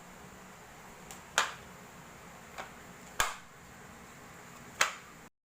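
Sharp clicks or snaps: three loud ones about a second and a half apart and two fainter ones between, over a faint steady hum with a thin high whine. The sound cuts off abruptly near the end.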